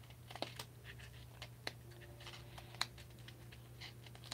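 Small scissors snipping at stiff craft foam, a scatter of faint sharp clicks and snips.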